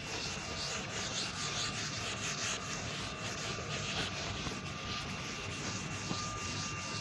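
Steady scratchy rubbing of writing strokes on a board, with faint strokes repeating a few times a second.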